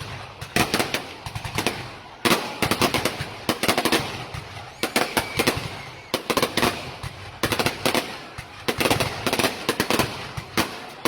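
Fireworks display: rapid volleys of sharp bangs and crackling, coming in clusters every second or two with short lulls between.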